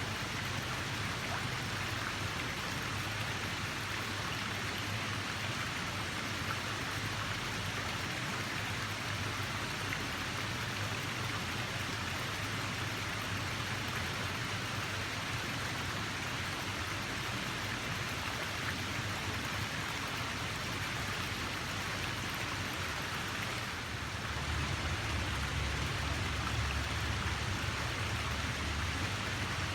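Steady, continuous rush and hiss of running water, with no pauses. A deeper rumble joins about 24 seconds in and the sound gets a little louder.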